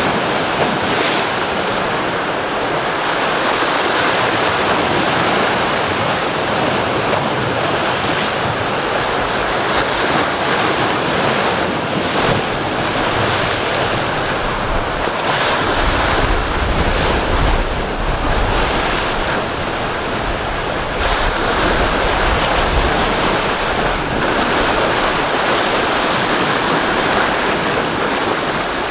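Strong wind buffeting the microphone over rough sea and surf, a steady loud rush with heavy low rumbling gusts from about halfway through.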